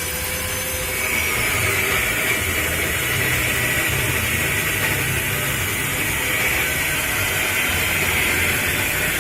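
Motorcycle engine running steadily, a low rumble under a loud, even hiss.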